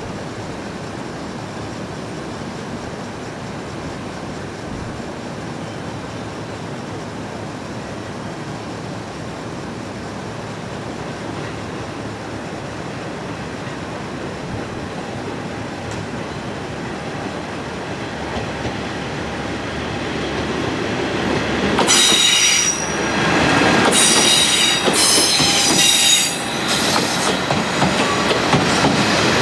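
A train rolling toward the microphone, growing steadily louder, then from about three quarters of the way through its wheels squealing against the rails in several high, shifting tones.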